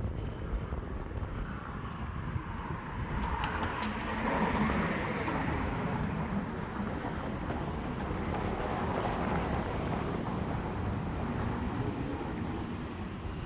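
Street traffic: a passing vehicle rises to its loudest about four to five seconds in and slowly fades, over a steady low rumble, with a smaller swell near nine seconds.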